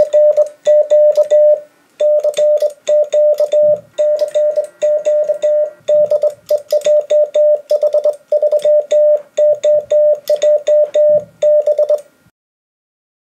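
Morse code sent on a replica 1908 Mecograph Model 3 bug key (semi-automatic key): the transceiver's steady mid-pitched CW sidetone keyed on and off in dots and dashes, with the key's lever and contacts clicking along, sending a CQ call. The sending stops about twelve seconds in.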